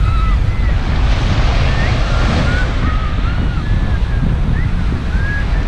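Wind buffeting the microphone over steady breaking surf, with a few faint short high-pitched tones.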